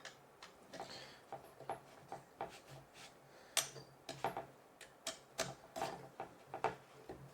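Irregular light clicks and ticks of a metal assembly screw being turned in by hand into a side-table panel, with a few sharper clicks in the middle.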